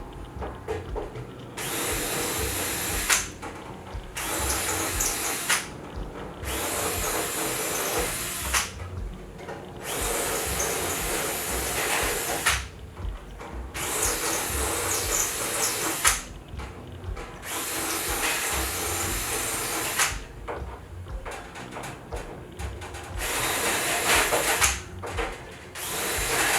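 Power drill run in about eight separate bursts of one to three seconds each, stopping and starting between them, as in deburring drilled holes in aluminium wing parts.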